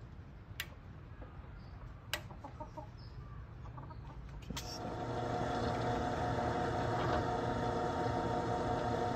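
Central Machinery 10-inch benchtop drill press motor switched on about halfway through and running with a steady hum. Two light clicks come before it, and a sharp click comes at the very end.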